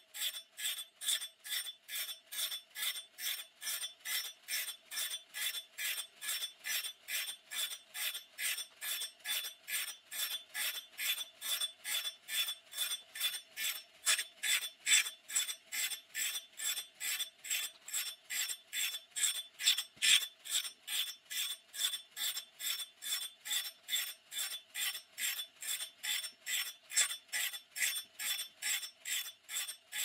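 Woodland Mills RS30 Pro sawmill blade sharpener grinding a band blade tooth by tooth. The grinding wheel rasps against each tooth in an even rhythm of about two to three strokes a second, over a steady motor hum.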